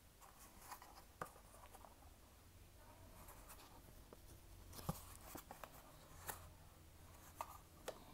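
Faint scratchy rustling from hands handling a packaged item, with several light clicks and taps scattered through.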